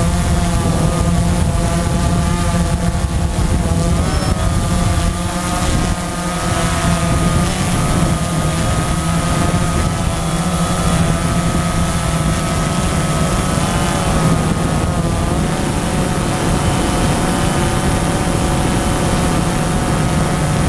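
Camera drone's electric motors and propellers whirring close up: a steady buzz whose pitch wavers up and down as the drone manoeuvres, with dips around four and seven seconds in.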